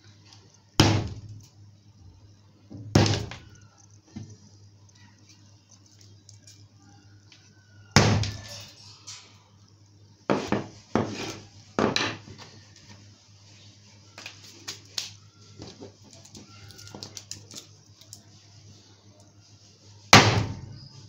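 Hammer blows crushing hard candy on a tabletop: sharp knocks, each with a short ring. Two heavy blows come about two seconds apart, then a quick cluster of four about halfway through, a few lighter taps, and one more heavy blow near the end.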